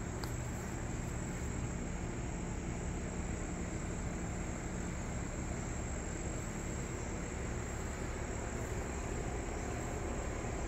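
Steady low drone of distant engines, even throughout, with a thin high steady tone above it.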